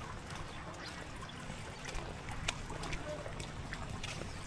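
Rain and dripping water: scattered sharp drips and splashes over a steady noisy hiss and a low rumble.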